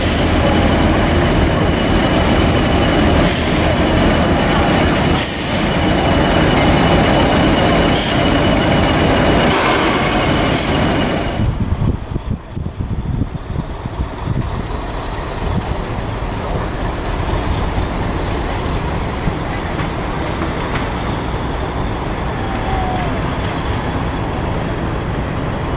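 British Rail Class 50 diesel locomotive's English Electric 16-cylinder engine running loud as it moves slowly along the platform, with a steady high whine and scattered clicks. About twelve seconds in, the sound cuts abruptly to a quieter, steady low rumble.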